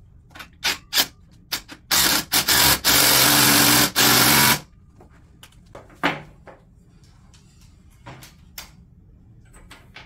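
Cordless drill driving a screw through a steel post connector into a concrete pier: a few sharp clicks, then the drill runs loudly for about two and a half seconds, stopping briefly a few times. Scattered clicks and knocks of metal handling follow.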